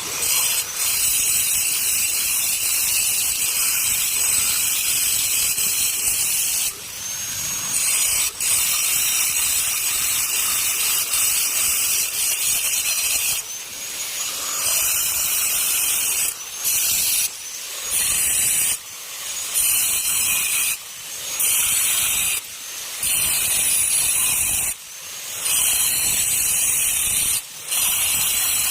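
A handheld power grinder working stone with a loud, steady, hissing grind. From about halfway on it is eased off and pressed in again every second or two, and the motor's whine climbs back up after each let-off.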